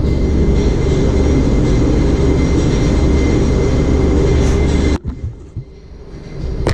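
Air compressor running with a loud steady drone and hum, cutting off abruptly about five seconds in, followed by a sharp click near the end.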